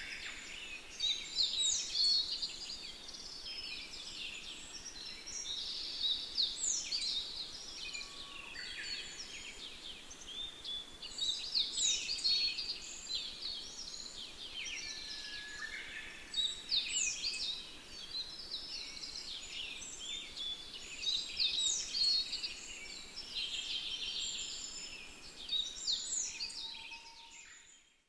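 Forest birds singing: quick high chirping phrases that swell in a cluster about every five seconds, over a steady faint outdoor hiss. The sound fades out near the end.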